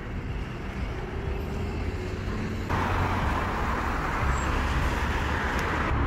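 Road traffic noise: a steady rushing hiss with a low rumble, which gets abruptly louder a little under three seconds in.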